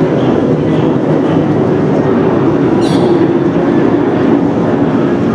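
Twin-engine jet airliner flying low overhead, its engines making a loud, steady rumble. A short high chirp sounds about three seconds in.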